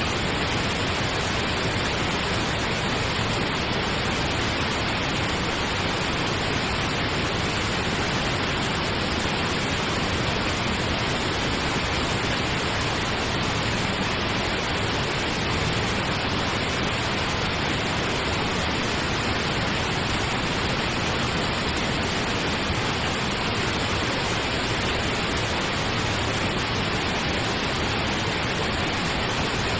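Steady pink noise: an even, unchanging hiss spread across all pitches, weighted toward the low end.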